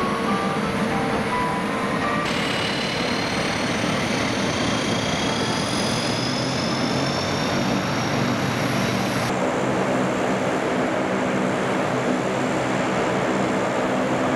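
C-130 Hercules's four turboprop engines running, a steady loud drone with a high whine that rises slowly in pitch in the middle.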